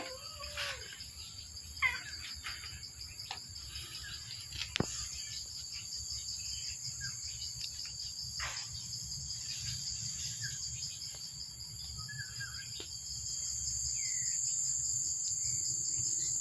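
Steady high-pitched insect chorus with a fast pulsing trill, getting louder about thirteen seconds in. A few short bird chirps and some light knocks come through over it.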